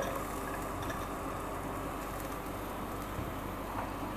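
Chopped onions sizzling in hot oil in a frying pan, a steady soft hiss that starts as they drop in.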